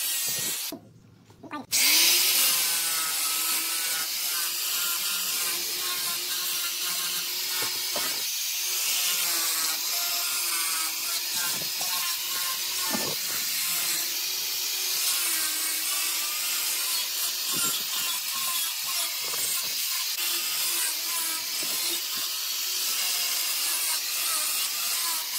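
Bosch angle grinder running with a sanding disc, then a sanding drum, pressed against carved wood: a steady high motor whine with scratchy abrasive hiss. It drops out briefly about a second in, then carries on.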